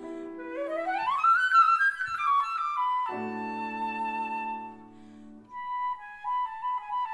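Classical flute-and-piano music. The concert flute plays a fast rising run about half a second in, then holds a long note over sustained piano chords. After a brief dip it re-enters with quick repeated notes near the end.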